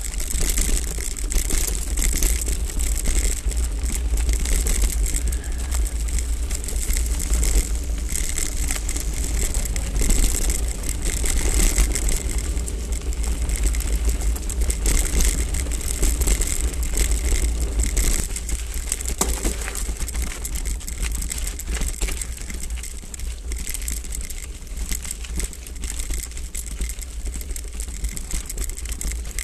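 Hardtail mountain bike rolling fast over a dirt and gravel trail, with tyre crunch and the bike and camera mount rattling over bumps. Constant low wind buffeting on the on-board camera's microphone.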